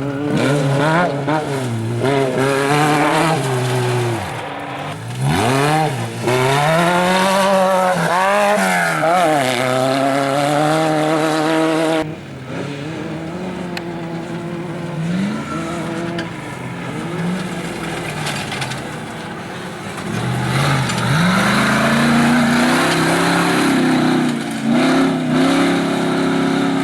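Off-road race vehicle engines revving hard, the pitch climbing and dropping repeatedly as the vehicles accelerate and lift off. The sound changes abruptly about twelve seconds in, and near the end another engine climbs and holds high revs.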